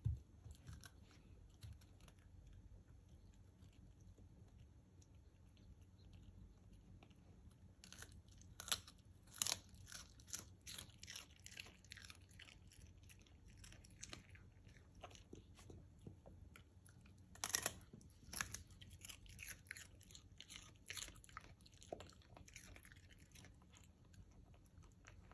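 A schnauzer chewing raw broccoli: crisp crunching in bouts, starting about a third of the way in and going on until shortly before the end.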